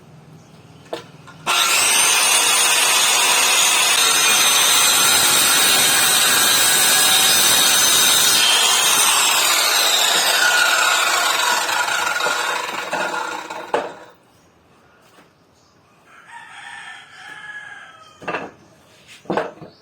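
Electric circular saw starting up with a high whine and running through a cut in wood for about seven seconds, then its pitch falls as the blade winds down and stops. A rooster crows briefly afterwards, and a few sharp knocks follow near the end.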